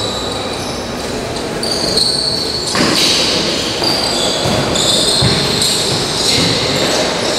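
Futsal play on an indoor court: high-pitched shoe squeaks on the floor and a sharp ball strike about three seconds in, echoing in a large hall.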